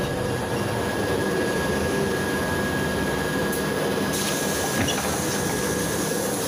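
Cabin noise of a Volgabus 5270G2 city bus running on liquefied natural gas: steady engine and road noise with a thin, steady high whine. A higher hiss joins about four seconds in, and the whine stops near the end.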